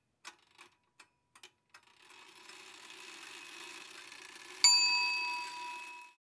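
Clock ticking a few times, then a swell of hiss building up, then a single bright bell strike that rings on for about a second and a half before cutting off.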